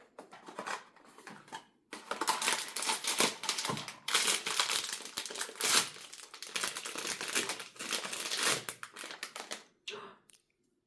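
Blind-box packaging wrapper being crinkled and torn open by hand to get at the figure inside, a dense crackling that starts faintly and grows loud about two seconds in, then stops about a second before the end.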